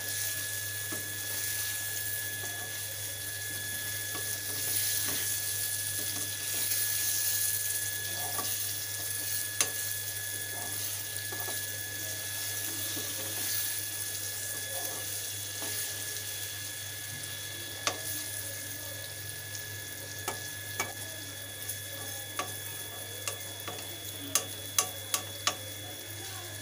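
Eggs and onion masala sizzling in a steel kadai while a steel spatula stirs and breaks them up. The spatula clicks and scrapes against the pan, most often near the end.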